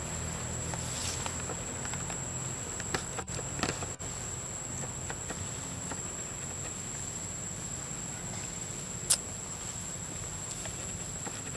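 Outdoor ambience: a steady high-pitched whine over a low rumble, with a few faint clicks and one sharper click about nine seconds in.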